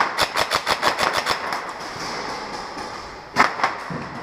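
Airsoft gun firing a rapid string of shots, about ten a second for over a second, then two more single shots near the end.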